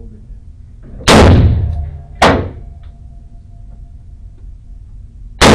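Three gunshots, each with a short ringing echo: two about a second apart near the start, the first the longer and louder, then a third at the very end.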